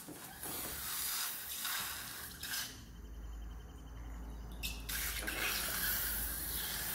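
A rubber balloon cut open and squeezed empty over a bowl of glitter, its contents pouring out with an uneven rushing, wet sound that surges several times.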